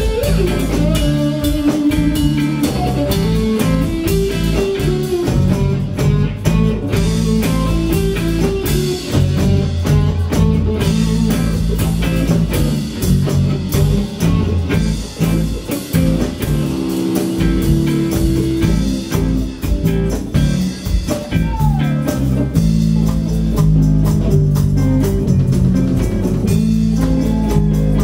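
Live band playing an instrumental groove: electric guitars over a drum kit.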